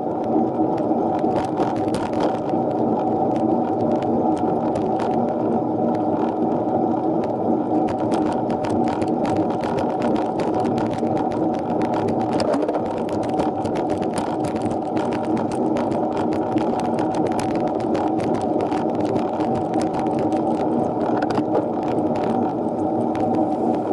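Steady whir of a minivelo bicycle under way on a climb, with tyre and drivetrain noise and a low hum. A fast, irregular patter of small clicks and rattles runs through it.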